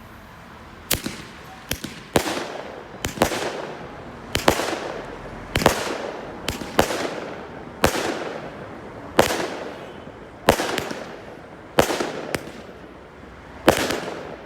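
Fireworks going off in a steady series: about a second in the first sharp bang, then roughly one bang a second, some in quick pairs, each trailing off in a fading crackle.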